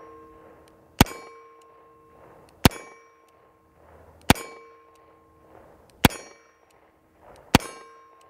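Korth Mongoose revolver firing .38 Special rounds, five shots evenly spaced about a second and a half apart. Each shot is followed by a clear metallic ring that fades over about a second.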